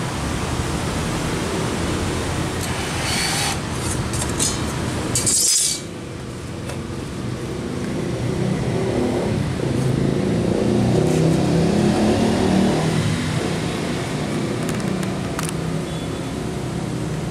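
Milwaukee M12 cordless compact band saw's blade cutting through a hollow square steel tube: a steady motor hum with a metallic rasp and clinks that end suddenly about five and a half seconds in as the cut finishes. The saw's motor runs louder again a few seconds later.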